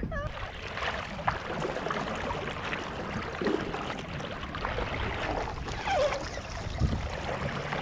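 Water sloshing and trickling around a stand-up paddleboard, a steady wash of noise.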